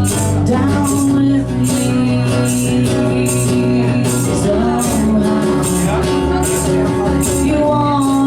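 A rock band playing a song: guitar and bass notes under a steady drum beat, with a cymbal or snare hit about every two-thirds of a second.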